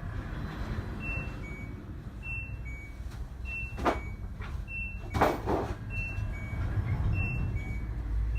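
LG Tromm WD-CR101C drum washing machine beeping repeatedly, a short high note then a lower one about every second, over a low hum, signalling the end of its quick-wash cycle. A few sharp knocks sound about midway.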